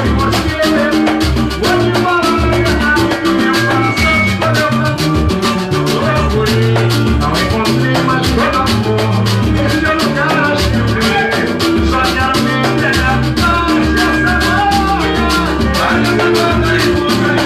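Band music from a Brazilian samba group: a fast, dense percussion beat with a moving bass line and melodic instruments over it.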